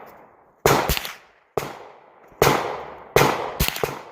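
Four gunshots fired about a second apart, each dying away in a short echo, with smaller sharp cracks close behind some of them.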